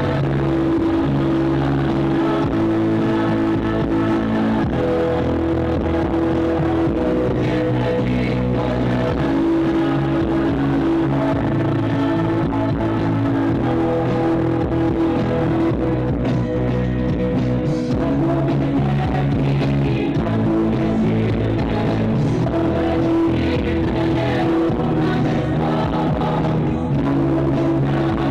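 A band playing music, with guitar, at a steady level with sustained chords throughout.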